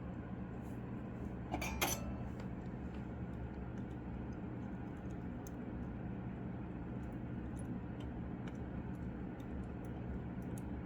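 Light clicks and taps of small tools and parts being handled during PCB soldering work, over a steady low hum. Two sharper clicks come close together about a second and a half in, then only faint scattered ticks.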